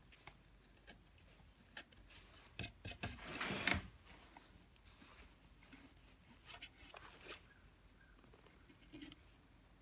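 A hand carving tool scratching and scraping on the surface of a carved cherub model, in short strokes with small clicks. A louder run of scraping about three to four seconds in, and a few more strokes around seven seconds in.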